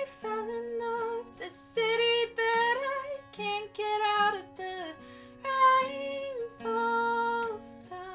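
A woman singing long held notes to a strummed acoustic guitar; the song dies away near the end.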